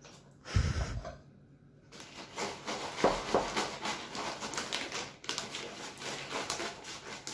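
A low thump about half a second in, then a clear plastic bag crinkling and rustling as a seed bait mix is scooped and worked into it, with a dense, crackly run of small clicks.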